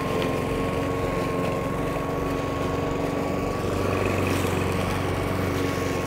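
Four-stroke petrol engine of a large self-propelled Hyundai lawn mower running steadily at medium throttle while cutting grass, a continuous even drone.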